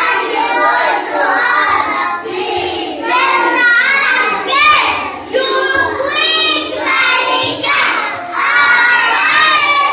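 A group of young children singing a nursery song together in short chanted phrases.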